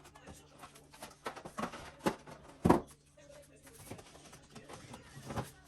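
Light knocks and clicks of food containers being lifted out of a refrigerator and set down, the loudest knock about two and a half seconds in, over a faint steady hum.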